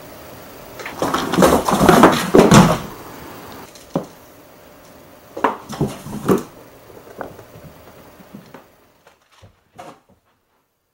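A cat jumping in and out of a cardboard box: a couple of seconds of cardboard scuffling and rustling, then several sharp thumps and knocks as the cat lands against the box walls, fading to a few faint taps near the end.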